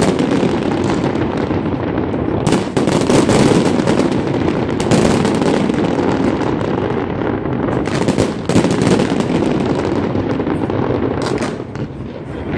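Large fireworks display: a dense, continuous barrage of bangs and crackling, with several heavier booms standing out, and a brief lull in the level just before the end.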